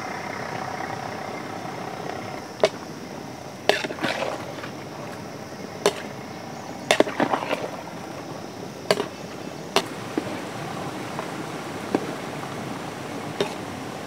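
A wooden spatula stirring chopped raw jackfruit in a large aluminium cooking pot, knocking against the pot about a dozen times at irregular intervals, some knocks ringing briefly.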